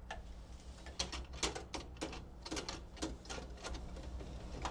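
Irregular light clicks and taps of sheet-metal and plastic parts being handled inside a vending machine's coin mechanism area, over a steady low electrical hum.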